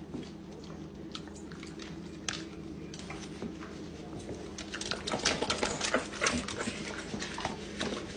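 Dogs' claws clicking and tapping on a tiled kitchen floor. The clicks are sparse at first, then come quicker and louder over the last three seconds.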